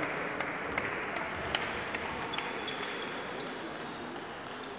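Sparse, irregular sharp clicks of table tennis balls bouncing on tables and striking bats around a large, echoing hall, with a few short high squeaks among them.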